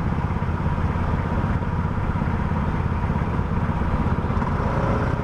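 Motorcycle engines idling in stopped traffic, a steady low rumble under general street traffic noise.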